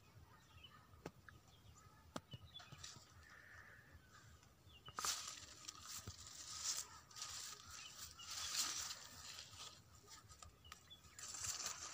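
Faint rural outdoor ambience with a few distant bird calls. From about five seconds in, bursts of rustling come in as tomato plant leaves brush against the phone during handling.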